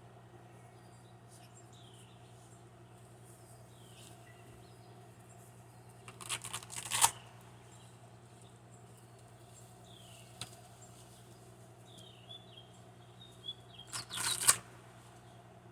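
Faint short falling bird chirps every second or two over a steady low hum, broken twice, about six seconds in and again near the end, by a loud noisy burst lasting about a second.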